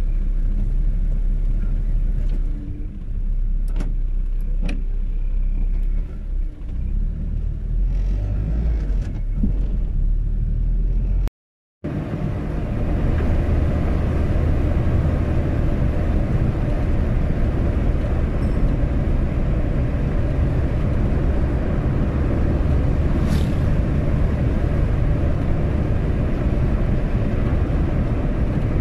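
Car driving, with engine and tyre noise heard from inside the cabin. For the first ten seconds or so it is a deep low rumble. About eleven seconds in the sound cuts out for a moment, then returns as a steadier, fuller road noise.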